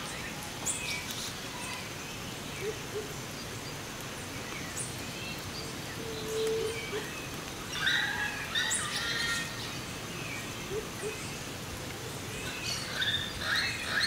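Several birds chirping and singing in a forest over a steady hiss of light rain, with a faint steady high insect buzz. The birdsong is busiest about eight seconds in and again near the end.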